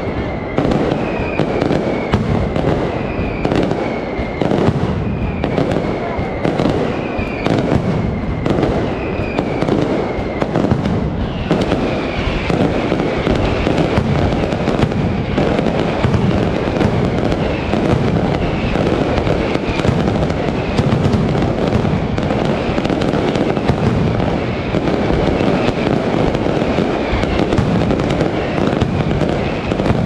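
Mascletà: a dense, continuous barrage of masclet firecrackers going off, the bangs coming too fast to count. Short high whistles recur about once a second through it.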